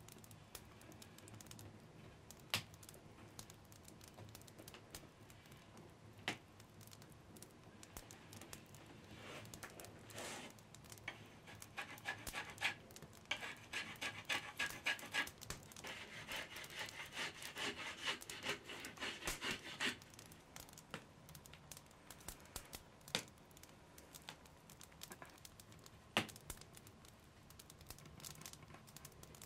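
Faint handling of wooden bow parts on a workbench: a few scattered clicks and knocks, and in the middle a run of rapid scratching strokes lasting several seconds.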